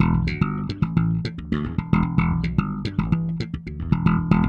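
Dingwall ABZ six-string bass guitar played in a slap groove, dry with the compressor bypassed: a quick, steady run of sharp slapped and popped notes.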